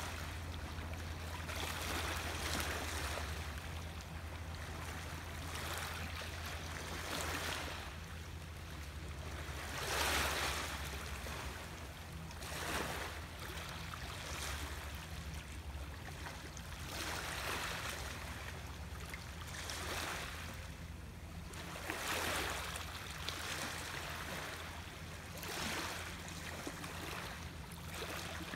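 Small waves washing, the water noise swelling every two to four seconds over a steady low rumble.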